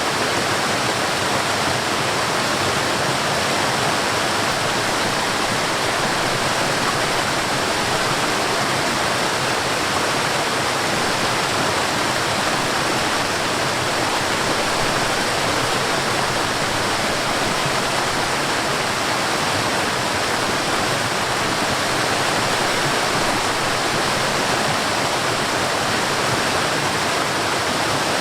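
Mountain stream rushing down a waterfall: a steady, even wash of falling and splashing water that never changes.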